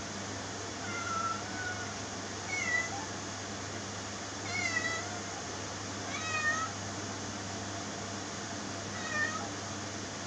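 A cat meowing five times, short calls a second or two apart, over a steady background hiss.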